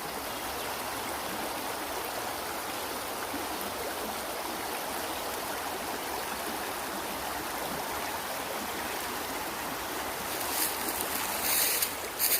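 Creek water running over rocks: a steady rushing stream. Near the end come a few short, sharp noises on top of it.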